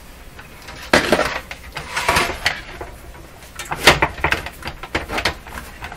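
Metal radio chassis scraping and knocking against its metal cabinet as it is forced out, in several clattering bursts, the loudest about a second in and near four seconds in: the chassis is wedged tight in the cabinet.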